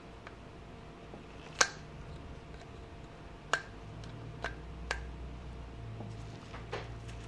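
Sharp small metal clicks, five of them at uneven gaps with the loudest about a second and a half in, as the circlip is worked out of a motorcycle rear brake master cylinder.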